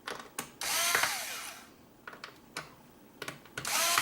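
Electric screwdriver backing out small screws from a tablet's bottom casing: a short whir of the motor about half a second in and another near the end, each rising and falling in pitch, with light clicks of the bit and screws in between.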